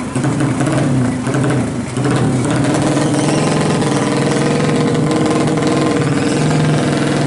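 Single-cylinder four-stroke engine of a Honda Supra drag bike, bored up to 200 cc with a big carburettor, running. It wavers for about the first two seconds, then holds a steady, even speed.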